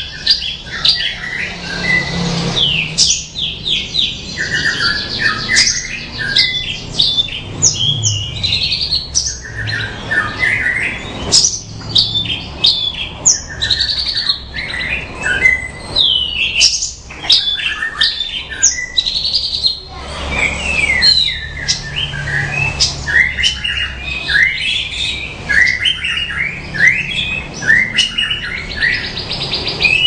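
Horsfield's bush lark (branjangan) singing a long, varied song without a break: rapid chirps, quick rising and falling whistled glides, and buzzy trills.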